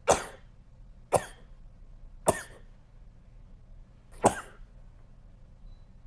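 A person sneezing four times in quick succession: short, sharp, stifled sneezes about a second or two apart, the last a little longer.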